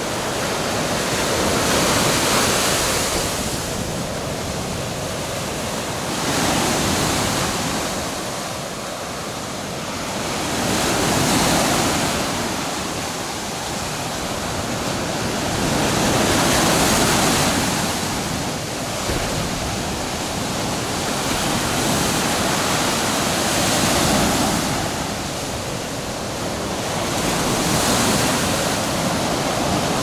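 Baltic Sea surf breaking and washing up a sandy beach. The rush of foam swells and fades every four to six seconds.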